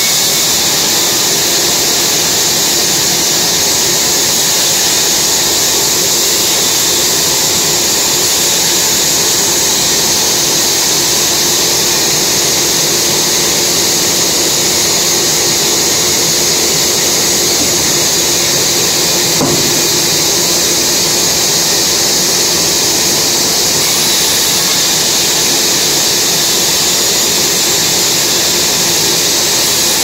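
Large vertical band saw running continuously as timber is fed through its blade: a steady, unbroken high-pitched hiss with a faint constant hum underneath.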